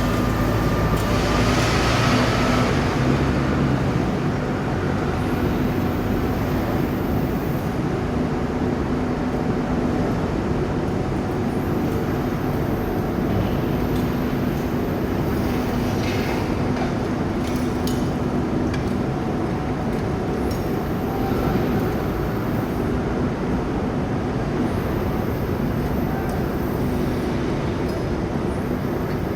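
Steady, loud industrial din of an induction furnace melt shop, with a low hum running through it.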